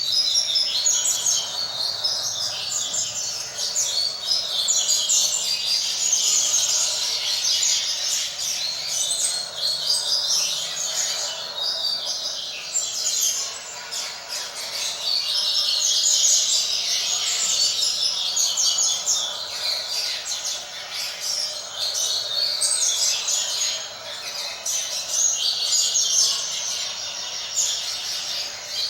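Coleiros (double-collared seedeaters) singing without a break in high, rapid, overlapping chirping phrases. A young bird is singing along with a recording of adult coleiros.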